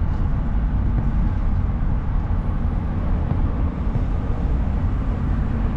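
Steady low rumble of road and engine noise inside a car's cabin while driving in slow highway traffic.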